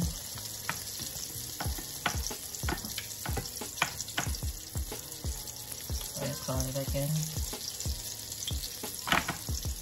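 Flour-coated fish fillet sizzling steadily in hot oil in a stainless steel skillet, with frequent short sharp clicks through the sizzle.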